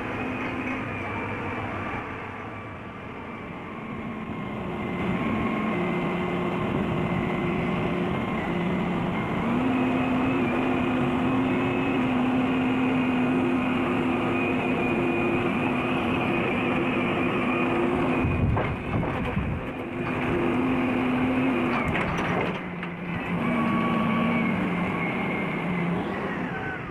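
Crane engine and hoist running steadily while lifting logs, a droning hum whose pitch steps up and down. It grows louder about five seconds in, and a few sharp clunks come in the last third.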